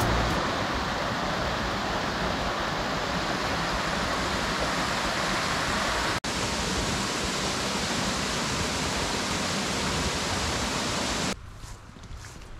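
Small jungle waterfall and its rocky stream, water rushing and splashing in a steady wash, broken for an instant about six seconds in. The rush cuts off suddenly near the end.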